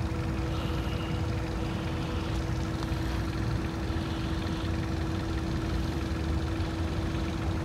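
Steady machine hum, engine-like, with a low rumble under an unchanging drone.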